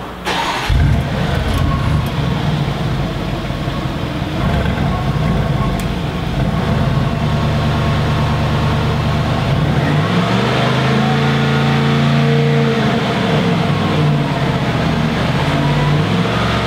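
Bentley Bentayga's 4.0-litre twin-turbo V8 on its factory exhaust, starting with a brief flare of revs and then idling. About ten seconds in the revs rise and are held for a few seconds before dropping back, then rise again near the end.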